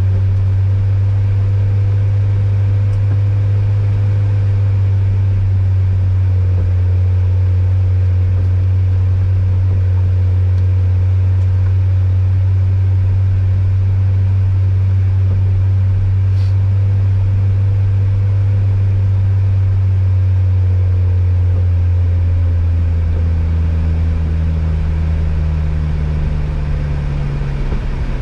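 Ford Fiesta ST's engine heard from inside the cabin while driving: a steady low drone that rises in pitch from about 22 seconds in.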